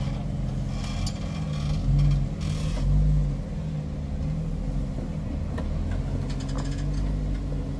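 Jeep Wrangler engine running at low revs while rock crawling, with a couple of brief throttle swells in the first half as the tires climb the boulder. A few sharp clicks or knocks come later, likely from the tires and suspension working over the rock.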